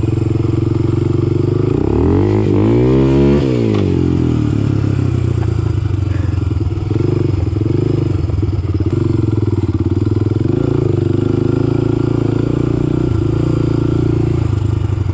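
Quad ATV engine running while riding a dirt trail, with a rev that rises and falls about two to three seconds in.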